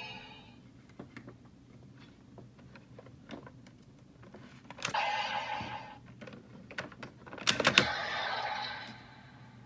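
Bandai Legendriver toy transformation belt being operated: light plastic clicks of cards being handled and loaded. Twice, about five seconds in and again near the end, a sharp click sets off a roughly one-second electronic sound effect from the belt's small speaker.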